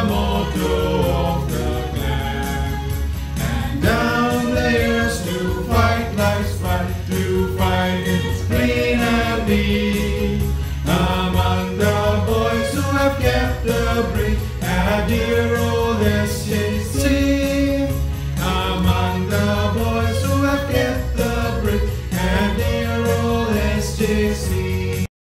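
A school song sung by voices over instrumental accompaniment; the music cuts off suddenly right at the end.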